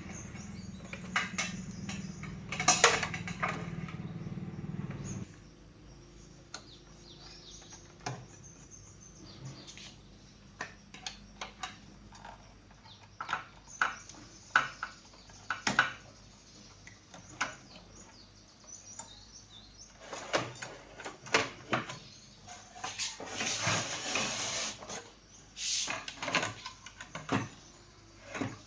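Tools and small hard parts being handled: scattered clicks, taps and short scrapes, with a steady low hum that stops about five seconds in.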